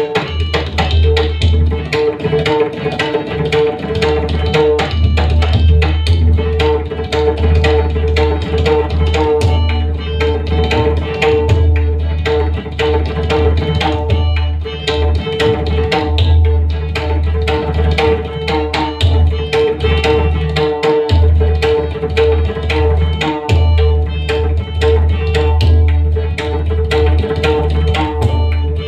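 Pakhawaj solo: rapid, dense strokes on the two-headed barrel drum, with a deep bass boom from the left head almost throughout. Under the drumming, a harmonium plays a steady accompanying melody (lehra).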